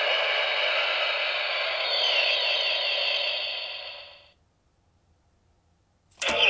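CSM Decadriver toy transformation belt playing its electronic KamenRide henshin sound effect through its built-in speaker: a dense electronic sound with rising sweeps about two seconds in, fading out by about four seconds. After a silence, a sharp click near the end as the belt starts sounding again.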